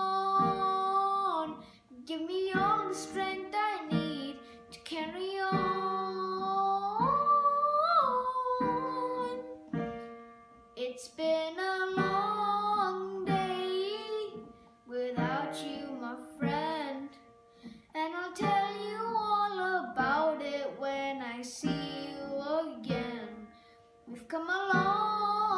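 A boy singing in phrases of a couple of seconds with short breaths between, accompanying himself with held chords on a Casio digital keyboard.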